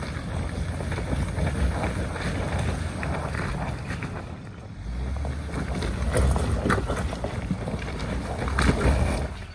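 2019 Ford Ranger 4x4 crawling up a loose-rock hill: tyres crunching and spinning on the stones with rocks clattering under them, over a heavy wind rumble on the microphone. The loudest crunches come about six and nine seconds in, and the sound cuts off suddenly near the end.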